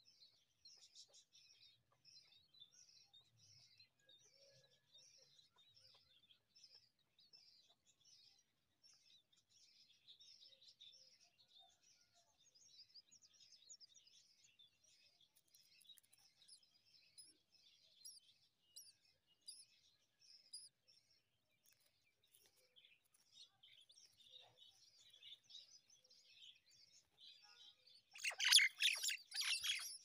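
Common myna nestlings chirping faintly and steadily, about two high chirps a second. Near the end comes a much louder burst of harsh chirping, the chicks' begging calls as a parent arrives to feed them.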